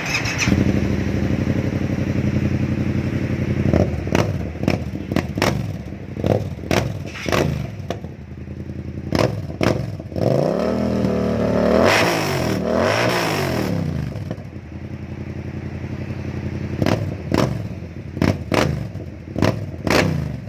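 Yamaha MT-07's 689 cc parallel-twin engine idling, then revved in a string of short throttle blips. About halfway through comes a longer rev that climbs and falls back, and more quick blips near the end.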